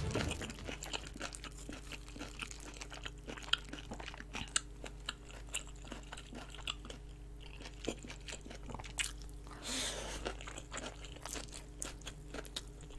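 Close-miked chewing of braised kimchi rolls wrapped around pork belly: soft, wet mouth clicks and smacks throughout, with a short breathy exhale about ten seconds in while eating the steaming-hot food.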